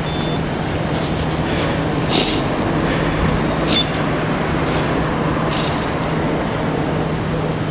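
Steady rushing road and wind noise on a bike-mounted action camera, with a low steady hum underneath. A short high beep sounds at the very start, and brief clicks come about two and four seconds in.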